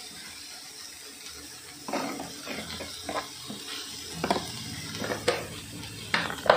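Sliced onions frying in oil in a large aluminium pot, a steady sizzling hiss. From about two seconds in, a string of sharp clinks and knocks as salt goes in.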